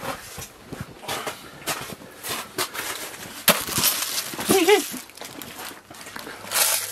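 Scattered knocks, clicks and rustling from someone moving about and handling gear, with one sharp knock about three and a half seconds in and a short pitched sound about a second later.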